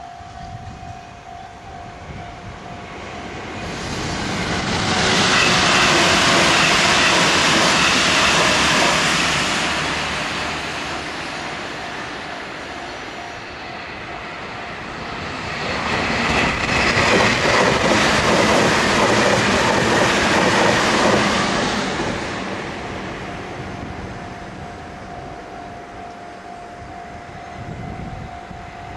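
Two electric trains pass over a level crossing one after the other, each a loud rush of wheel and running noise that swells, holds for about six seconds and fades; the second comes a few seconds after the first has died down. The crossing's warning bell rings steadily before and after, drowned out while the trains go by.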